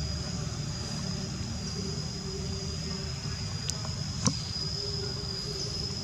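Outdoor ambience: a steady high-pitched insect drone over a low rumble, with two sharp clicks a little past halfway, the second the louder.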